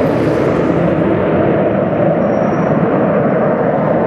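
Jet engines of a four-ship formation of military jet aircraft flying overhead, a loud, steady rushing noise that holds level throughout.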